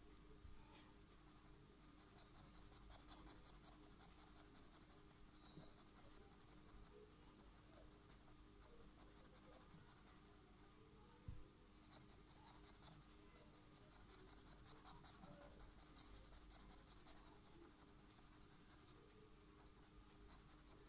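Faint scratching of a felt-tip marker colouring on paper in short rapid strokes, coming in two spells, with a single sharp click about eleven seconds in.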